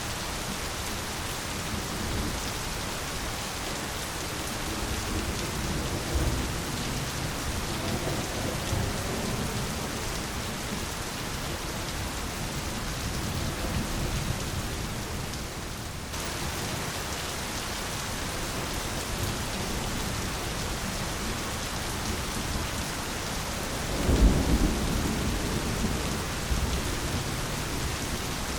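Steady heavy rain falling on foliage, with a few low rolls of thunder; the loudest rumble comes near the end.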